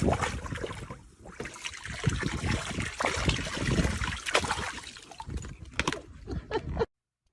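Water splashing and trickling in irregular bursts, cutting off suddenly near the end.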